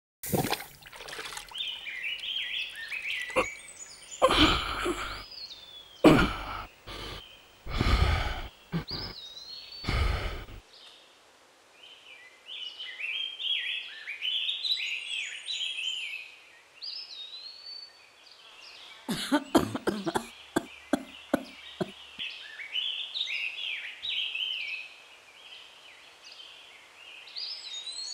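Birds chirping and calling, with several loud thumps in the first ten seconds and a quick run of sharp knocks about twenty seconds in.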